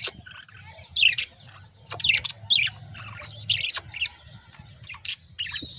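Pet budgerigars chirping and squawking: a string of short, harsh, high-pitched calls about a second apart.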